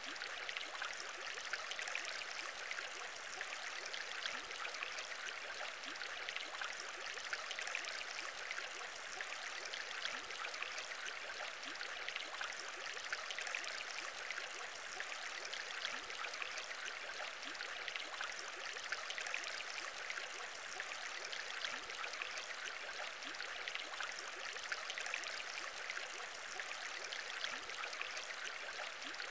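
Aquarium bubbling: a steady stream of small bubbles in water, a dense patter of tiny pops over a hiss, unbroken throughout.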